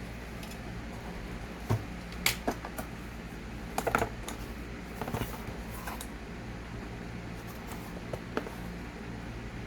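Scattered clicks, taps and rustles of a cardboard box and its packaging being handled and opened, over a steady low hum.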